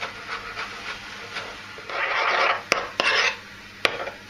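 Chef's knife chopping chives on a wooden cutting board in light, quick strokes, about three a second. About two seconds in come louder rasping scrapes of the blade across the wood, then a few sharp clicks as a spoon stirs the chives into crème fraîche in a ceramic bowl.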